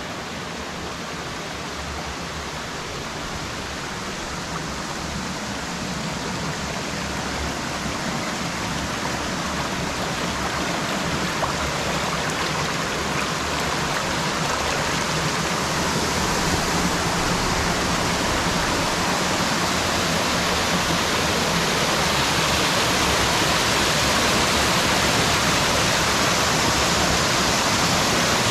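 Water of a rocky mountain stream rushing and splashing as a steady hiss, growing gradually louder throughout.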